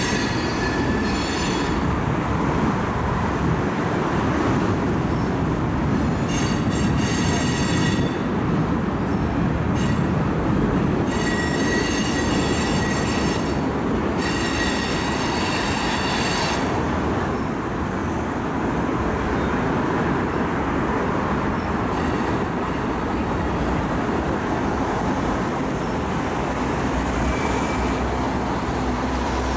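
A train rolling past with a steady loud rumble of wheels on rail, and high-pitched wheel squeal that comes and goes in several stretches of one to a few seconds, strongest in the first half.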